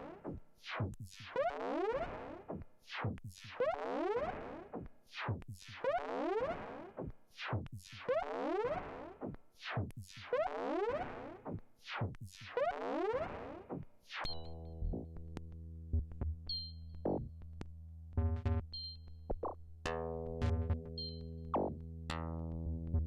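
Erica Synths Perkons drum machine playing a slow pattern of experimental kit sounds: repeated synthetic hits with sweeping pitch. About 14 seconds in the kit changes to a steady droning tone under clicks and short pitched hits.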